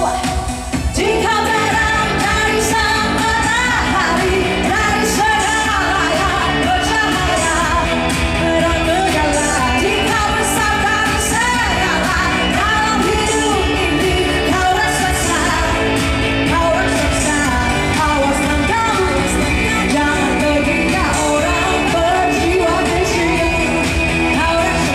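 A woman singing a pop song live into a microphone, backed by a band with drums, through a concert PA in a large hall.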